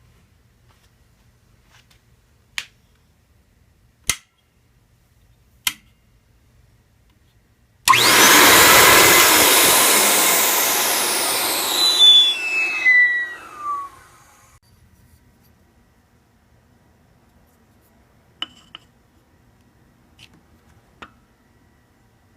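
Vacuum former's suction motor switched on with a sudden start and running loud for about four seconds, then winding down with a falling whine. This is the vacuum pulling the heated plastic sheet down over the tooth model. A few sharp clicks come before it and after it.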